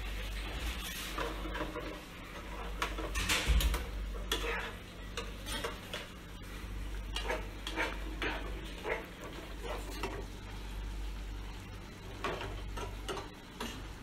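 Metal spoon scraping and clinking against a frying pan in irregular strokes, stirring chicken pieces in their sauce over a faint sizzle.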